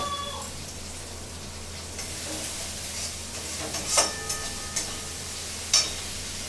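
Onion-tomato masala sizzling steadily as it fries in a pan, with a spoon knocking against the pan twice, about four and nearly six seconds in.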